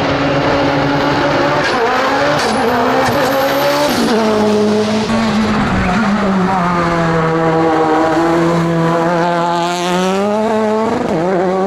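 Race car engines. First one car's engine is held at steady revs, then after a break a Škoda Fabia hillclimb car's engine runs by, its pitch falling as it slows for a bend, holding low, and rising again as it accelerates out near the end.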